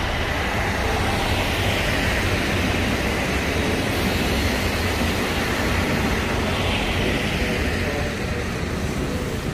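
Kiha 183 diesel multiple unit passing close by: a steady rush of wheels on the rails and the cars' diesel engines, with a low hum underneath. The sound swells about two seconds in and again near the end as the cars go by.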